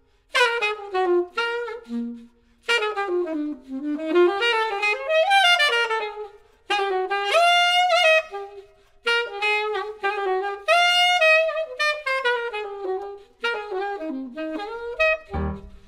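Solo jazz saxophone playing a melodic line in phrases with short pauses and sliding, bent notes. Low accompanying notes come in just before the end.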